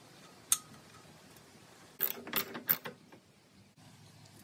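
Metallic clicks from hand work on a small gasoline engine as a new spark plug is fitted: one sharp click, then a quick run of four or five clicks.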